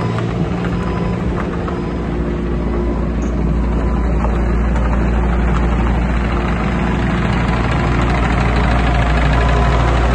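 Hyundai R25Z-9A mini excavator's diesel engine running steadily while the machine travels and slews, growing a little louder toward the end as it comes close.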